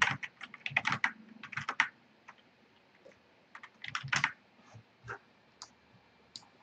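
Typing on a computer keyboard, with quick runs of keystrokes in the first two seconds and again around four seconds in, then a few single clicks.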